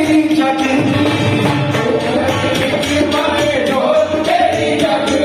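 A male voice sings a devotional bhajan into a microphone, with tabla and dholak keeping the beat, heard through a PA system.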